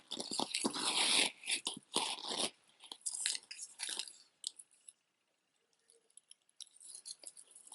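Rustling and crinkling from a beaded knitted scarf being handled, with light clicks, strongest in the first two and a half seconds, then fading to a few faint clicks.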